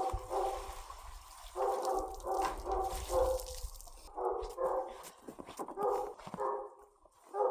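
A dog giving short, repeated whining yips in bursts of three or four, with brief pauses between the bursts.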